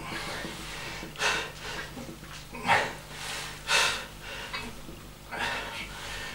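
A man's hard, noisy breaths of effort during repetitions of a lying barbell triceps extension: four sharp puffs about a second and a half apart, the second the loudest.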